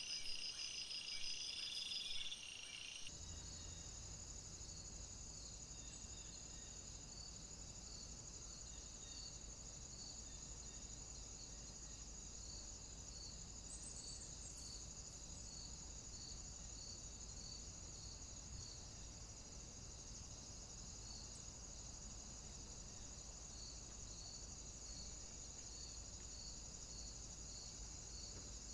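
Insects chirring at a high pitch. For the first three seconds the chirps are louder and pulsed. After that the sound is a steady high chirring with a faint beat about once a second, over a low steady hum.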